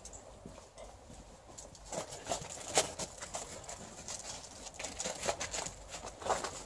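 Irregular crunching steps in snow, starting about two seconds in and going on in uneven clusters.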